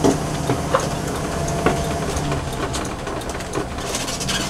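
Ford V10 gas engine of a Class A motorhome heard from the cab, running steadily under load as the heavy coach accelerates slowly, over road noise. A few sharp rattling clicks from the coach interior come through near the start.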